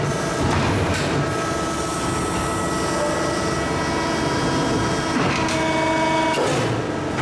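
Maru Kikai 300-ton, 4 m hydraulic press brake running as it bends a long steel plate: a steady mechanical noise with a faint pump whine over it.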